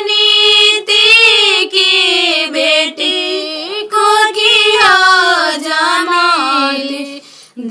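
A high solo voice singing a kanyadan geet, the Bhojpuri folk song sung as the bride is given away, with long wavering held notes. It breaks off briefly near the end.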